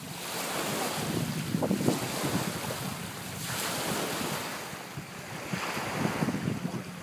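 Wind buffeting the microphone outdoors, a rushing hiss that swells and eases in gusts.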